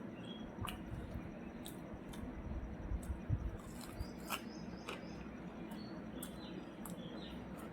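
Eating sounds: a person chewing, with irregular sharp mouth clicks and a few low thumps about three seconds in.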